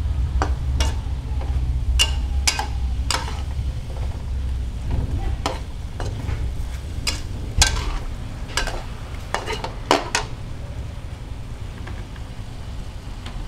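Metal spatula scraping and knocking against a wok as squid is stir-fried, over a steady frying sizzle and a low rumble. The strokes come every half second to a second, then stop after about ten seconds.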